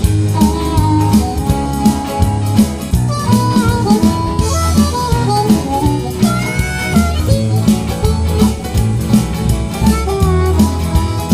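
Background music with a steady beat, a bass line and melodic instrument lines.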